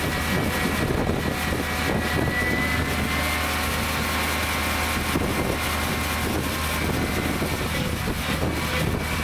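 Engine of a large runway snow broom running steadily, a continuous mechanical drone with a thin high whine over it.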